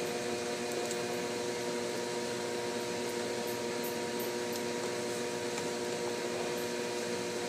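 Steady machine hum, several held tones over a light even hiss, like an appliance fan running.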